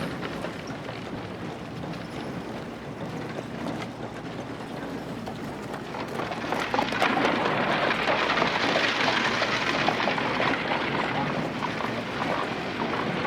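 House-building site ambience: a dense wash of noise scattered with many small knocks and clicks, getting louder about halfway through, with voices mixed in.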